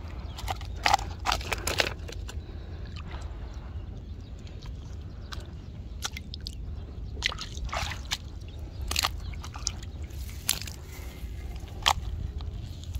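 Water sloshing and splashing in irregular bursts, about nine in all, over a steady low rumble.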